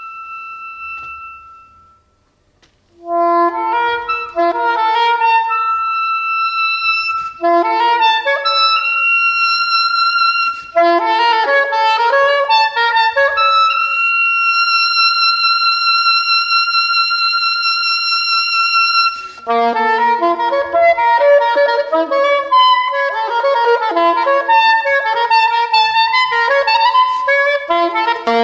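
Soprano saxophone playing a concert solo line. A held note dies away, then after about a second's pause come quick runs of notes, a long high note held for about five seconds past the middle, and more fast runs.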